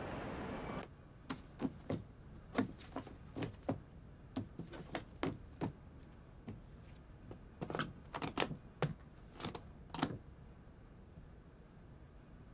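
A moment of street noise cuts off about a second in. Then the keys of a manual typewriter strike irregularly, in uneven runs, for about nine seconds and stop.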